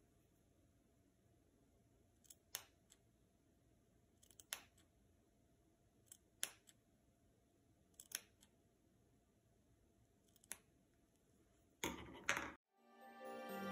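Scissors snipping through fleece fabric, cutting a fringe into the end of a scarf: single crisp snips about every two seconds, with a quicker, louder run of cuts near the end. Soft music comes in just before the end.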